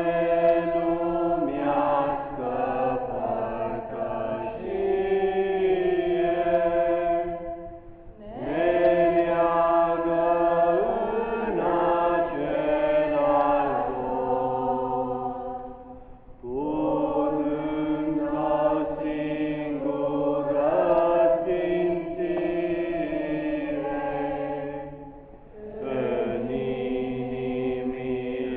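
Girls and young women singing a hymn together, in long phrases with brief breaks about every eight seconds.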